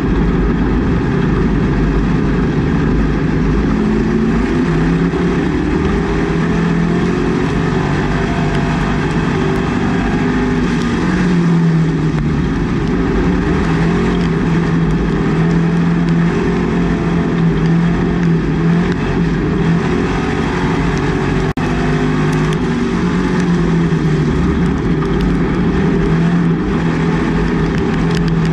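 Race car engine heard from inside its roll-caged cockpit, running loud and steady at low speed, its pitch drifting gently up and down. A single sharp click comes a little past two-thirds through.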